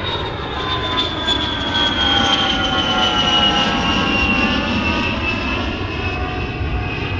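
Airliner engines running, with a high whine that slowly falls in pitch over a steady rushing noise.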